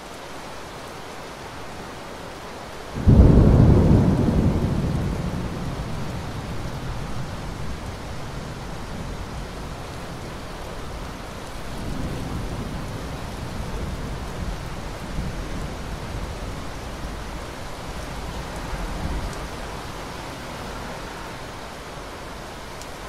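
Steady rain, with a loud rumble of thunder breaking about three seconds in and slowly dying away over several seconds. Two fainter rolls of thunder come later.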